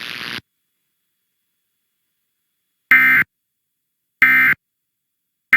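Emergency Alert System end-of-message (EOM) signal: three short bursts of SAME digital data, a little over a second apart, the first about three seconds in. They mark the end of the alert message.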